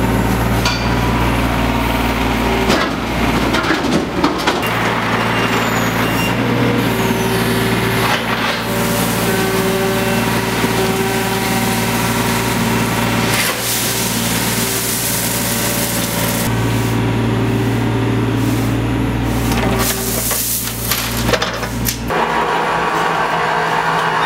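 John Deere 27D compact excavator's diesel engine running steadily, with scraping and clattering as its bucket digs into crushed gravel. The engine note shifts abruptly several times.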